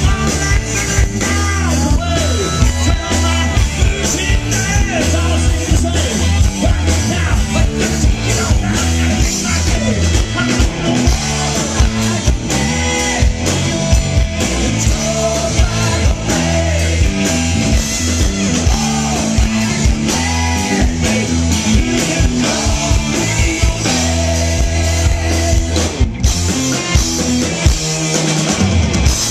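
Live rock band playing loud through the PA: electric guitar, bass and drum kit, with a man singing lead. The band stops briefly near the end, then comes straight back in.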